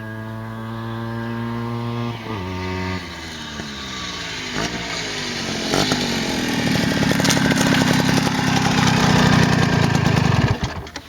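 Tomos APN6 S moped's single-cylinder two-stroke engine coming up at speed, growing louder. Its pitch drops in two steps about two and three seconds in, then it turns loud and harsh as it passes close. The sound cuts off suddenly near the end.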